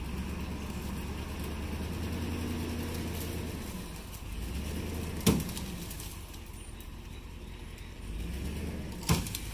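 A pickup truck's engine runs steadily under load as it pulls on a strap tied to a grapevine. A sharp crack comes about five seconds in and another near the end, as the tow strap snaps.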